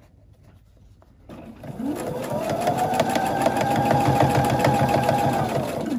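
Electric sewing machine starting up about a second in, its motor whine rising as it speeds up, then running steadily with a rapid even needle stroke as it stitches a seam through fabric, and slowing to a stop near the end.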